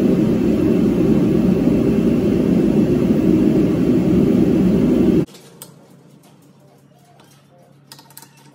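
Loud steady rushing mechanical noise that cuts off abruptly about five seconds in. After it come faint clicks of a socket and torque wrench on the bolt.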